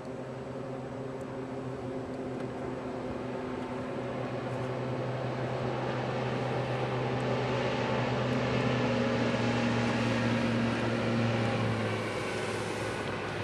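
Ranger bass boat's Mercury 250 outboard running at high speed on a pass-by: a steady engine note that grows louder as the boat approaches, then drops in pitch and fades near the end, with the hiss of the hull and spray on the water.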